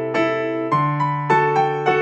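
Background music: a gentle piano melody of single struck notes, a new note every third to half second, over held bass notes.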